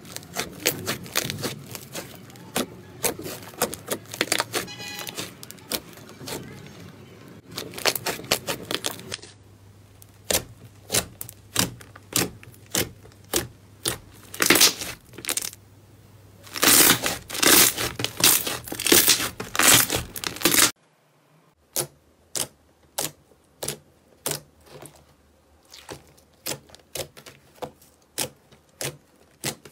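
Slime being squeezed and poked, making rapid sticky clicks and crackling pops. The clip changes about nine seconds in and again about twenty-one seconds in; the last stretch is quieter, with slower, separate clicks.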